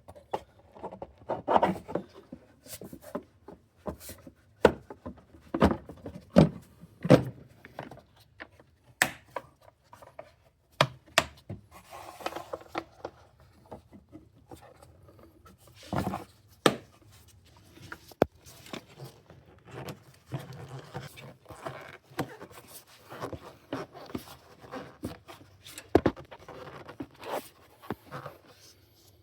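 Hand work on engine-bay parts, most likely fitting a replacement rubber air intake hose: irregular rubbing and scraping with sharp clicks and knocks of plastic and metal parts. No engine is running.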